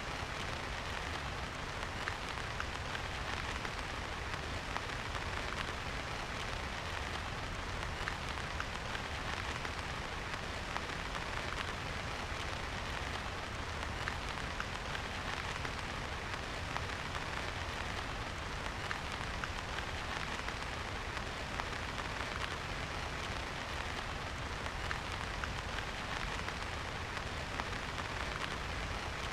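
Steady rain falling, with many small drop ticks pattering on surfaces over an even hiss and a low steady rumble underneath.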